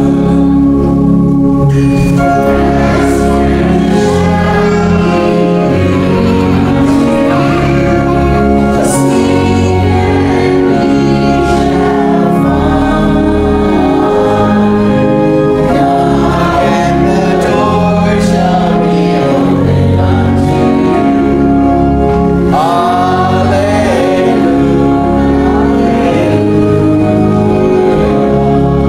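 A church choir singing with organ accompaniment, in sustained chords over a steady bass.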